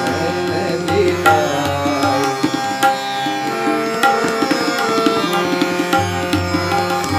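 Instrumental passage with no singing: tabla strokes with booming low bayan beats, under a harmonium melody of held notes and a plucked tanpura drone.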